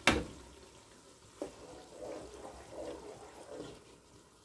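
Thick blended pepper and tomato purée scraped with a wooden spoon out of a metal pot into a large pot of frying onions. A sharp knock of the pots or spoon at the start, another small knock about a second and a half in, then wet sloshing and scraping as the purée slides in.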